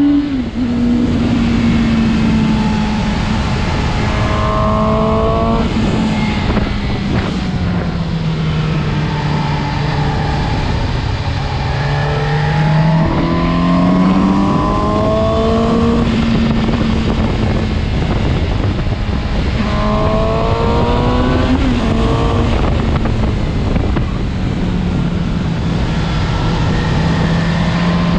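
Suzuki GSX-S750's inline-four engine running at road speed, with wind rush over the bike. The engine pitch rises in clear climbs about five, thirteen and twenty seconds in as the throttle is opened, and sags in between.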